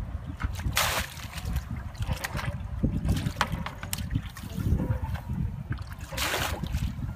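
Muddy water splashing and gushing as a plastic bucket is scooped through a shallow pool and emptied, bailing it out. There are two loud gushes, about a second in and near the end, over a steady low rumble.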